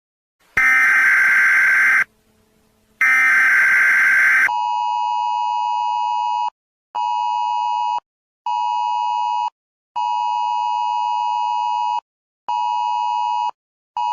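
Emergency Alert System style alarm: two harsh buzzing bursts of digital header data, then the two-tone attention signal sounding in a pattern of long and short beeps with short gaps between them.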